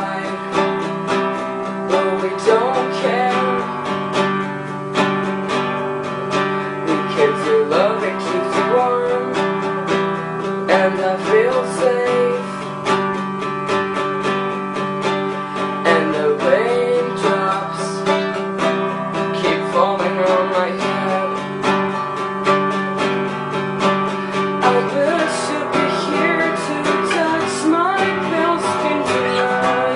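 Acoustic guitar music, strummed and plucked, with a melody line that bends in pitch over the chords.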